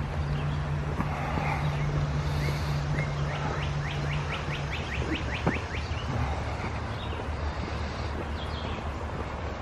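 Steady rushing of a river, with a low steady hum that stops about five seconds in. About three and a half seconds in, a bird gives a quick trill of about a dozen short rising chirps.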